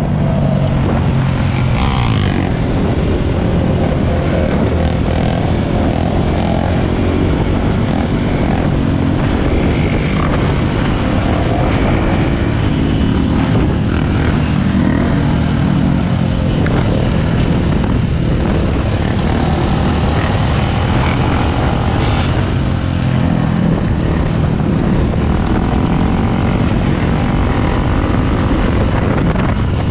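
Dirt bike engine running at riding speed, mixed with the engines of nearby ATVs and other dirt bikes, at a steady loud level throughout.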